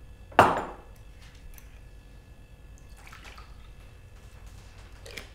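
Orange juice poured from a plastic bottle into a glass, a faint splashing stream. About half a second in comes one loud, sharp knock.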